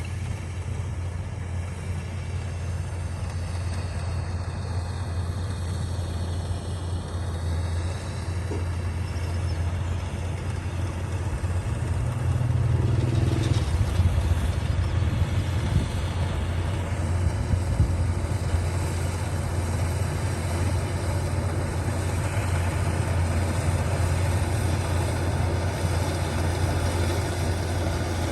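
Kubota rice combine harvester's diesel engine running at a steady low drone, with faint machine whines above it, getting slightly louder about twelve seconds in.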